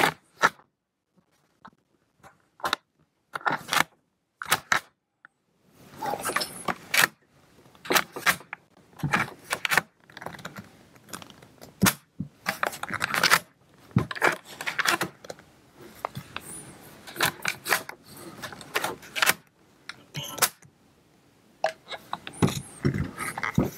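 Metal clicks and rattles from the 1891 Fosbery slide-action shotgun being handled. A few sharp separate clicks come in the first five seconds, then near-continuous clicking, rattling and rubbing as the action is worked and the gun is turned over in gloved hands.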